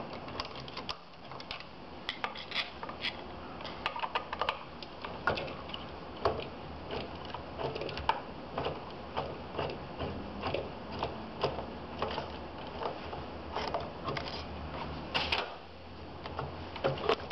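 Irregular small metallic clicks and scrapes of a hand Allen driver backing out the two screws that fasten the motor to the aluminium body of an oil burner, and of the loosened parts being handled.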